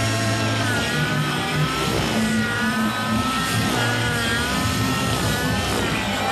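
Nitro-engined radio-controlled helicopter flying 3D aerobatics: a high engine whine with its pitch wavering up and down as the load changes.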